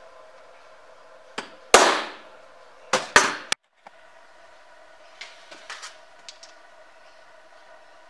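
About five sharp metallic strikes, two of them loud with a short ring, as a punch marks hole centres on an aluminium mould block lying on a steel bench; later, fainter clicks of the block being handled. A steady hum runs underneath.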